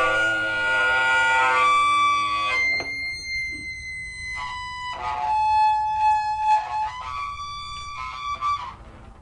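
Experimental noise music played live: held, buzzing tones rich in overtones that jump to new pitches every second or so, with short breaks between some of them. It is loudest in the first couple of seconds and trails off near the end.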